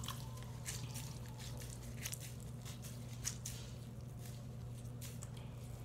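Soaked washcloth being squeezed and wrung out by hand at a sink: faint scattered squishes and small drips, over a steady low hum.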